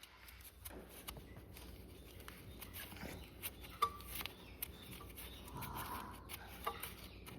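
Faint scattered clicks and light taps of the dipstick cap on the dirt bike's oil filler being unscrewed by hand.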